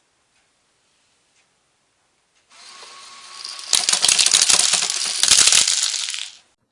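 A Lego Power Functions motor starts running about two and a half seconds in. A second later a stream of small plastic Lego studs begins clattering down the motorized Lego waterfall, a dense rattle that cuts off suddenly near the end.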